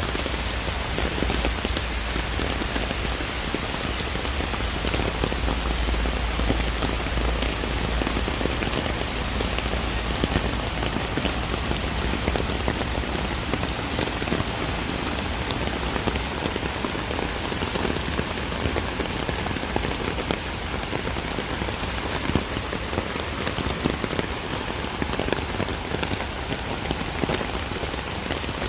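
Heavy rain falling steadily, an even hiss made of countless raindrops striking surfaces, with many separate drop hits. A low rumble runs underneath and fades out about halfway through.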